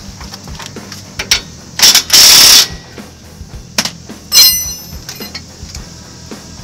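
Cordless impact wrench hammering bolts tight on a truck's rear shock absorber mounts. There is a short burst about two seconds in, then a longer burst right after, and another brief burst with a ringing whine a little past four seconds, with small tool clicks between.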